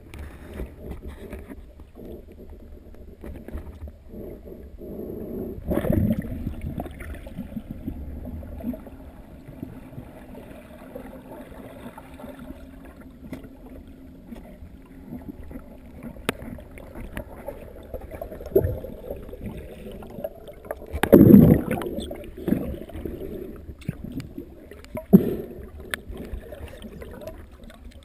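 Underwater ambience through a camera housing: a steady, muffled low rumble of water, broken by a few dull thumps and knocks. The loudest comes about 21 seconds in, with others about 6, 19 and 25 seconds in.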